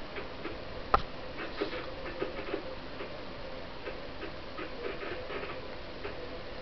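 Cat licking a kitten's fur: a run of soft, irregular ticks, with one sharper click about a second in, over a faint steady hum.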